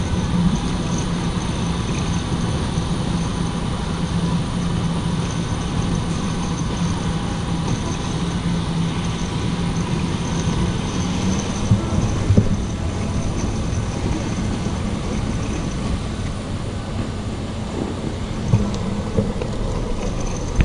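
Boeing 737-800 jet noise: a steady low rumble with a thin high whine over it, and a couple of brief knocks past halfway.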